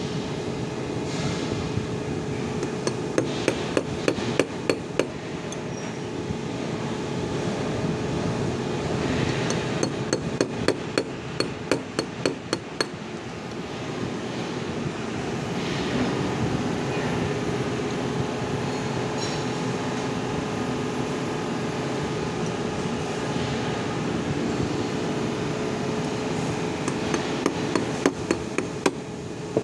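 Hammer tapping a steel punch against a cooling-fan motor part, in three quick runs of light metal-on-metal strikes: a few seconds in, around the middle, and near the end. A steady hum with a constant tone runs underneath.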